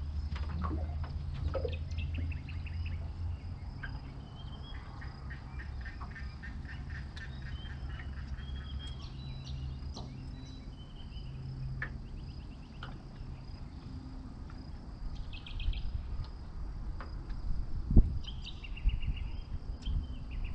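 Birds calling, with several rapid chattering trills over a low rumble. A sharp knock near the end is the loudest sound.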